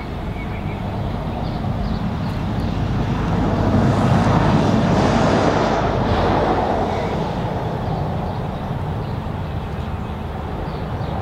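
Low steady rumble of an approaching G class diesel locomotive, heard at a distance, with wind buffeting the microphone. The noise swells about four to six seconds in.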